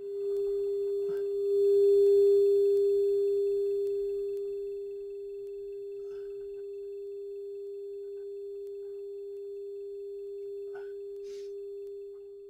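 Steady sine-wave test tone, one pure mid-pitched note, played through speakers from the repaired Onkyo P-304 preamplifier. It swells about two seconds in, eases back and holds, and drops a little near the end, with a few faint clicks along the way.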